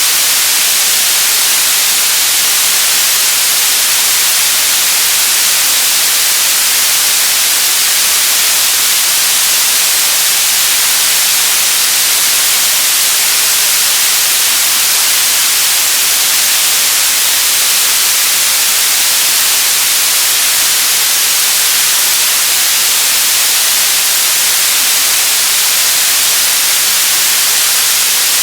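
Television static: a loud, steady hiss of white noise, weighted toward the high end, with no change throughout.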